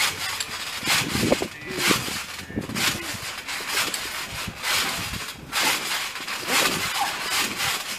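Kids jumping on a trampoline mat covered with wet Orbeez water beads: irregular noisy splats, roughly once a second, as feet land and the beads scatter.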